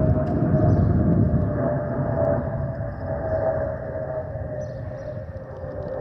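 Airbus A320's fuel over-pressure protector (FOPP) vents on the wing underside whistling as the jet passes overhead: a steady howling tone that slides slowly lower in pitch, over a low rumble of jet noise that fades a little toward the end. The howl is the sign of the open FOPP cavities, typical of A320s not fitted with the vortex generators that cure it.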